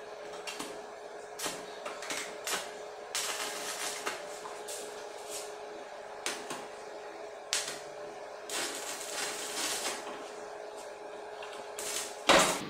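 Stick arc welder tack-welding a steel window-grill frame: short crackling bursts of arc, some a second or so long, over a steady hum. One loud sharp burst comes near the end.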